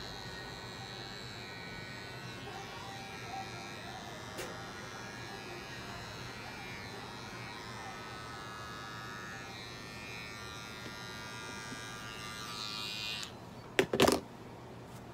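Small cordless pet hair clipper buzzing steadily as it shaves the fur on a cat's foreleg, clearing the skin over the vein for an IV line. It stops about thirteen seconds in, followed by a few sharp knocks.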